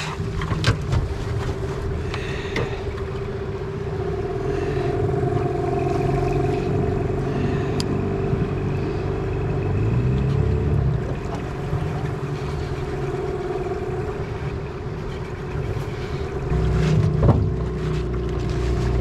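Small boat's motor running steadily with a constant hum as the boat moves across the river, with a few brief clicks and knocks.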